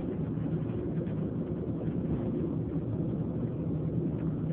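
Train running: a steady low rumble with a faint hum.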